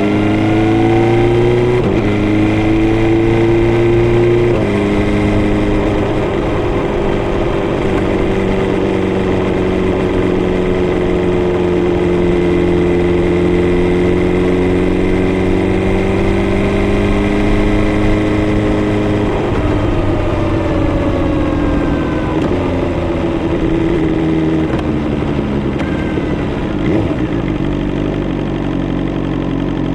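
BMW S1000R's inline-four engine under way: it accelerates through two upshifts in the first five seconds, then holds a steady cruise with the revs drifting slowly up and down. From about twenty seconds in the revs drop in steps as the bike slows.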